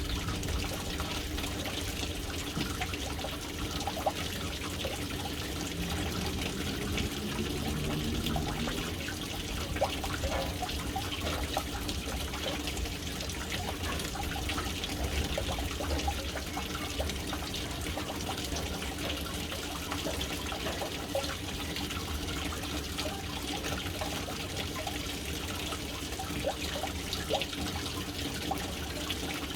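Water pouring steadily from the inlet pipe into a household water storage tank (caixa d'água), a continuous splashing trickle with small irregular splashes.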